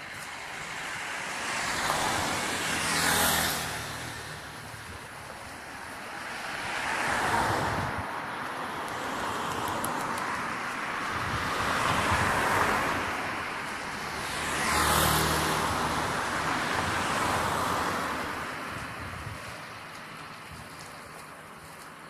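Cars passing one after another on the road, each swelling up and fading away as it goes by. The loudest pass close about three seconds in and again about fifteen seconds in, with a falling pitch as they go past.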